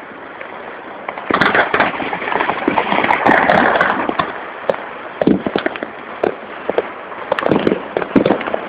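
Fireworks and firecrackers going off in quick succession, a dense crackle of many bangs and pops that grows louder about a second in.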